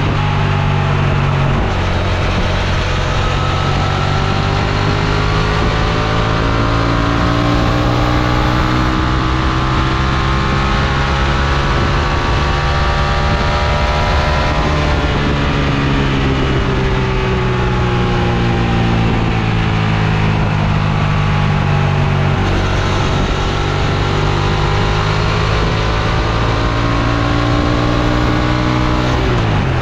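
Honda XL750 Transalp's parallel-twin engine running under way. Its note climbs slowly, eases down, then climbs again, with a brief sharp change in the note right at the end.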